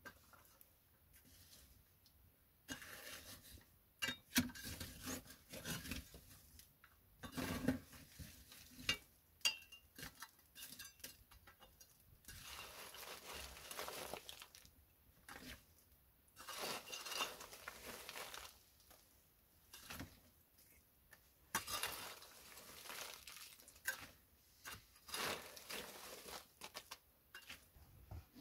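Metal scoop clinking and scraping against the brick stove around its firebox, with wood chips and shavings rustling as they are handled. The sound comes as irregular sharp clinks and several longer scraping, rustling stretches.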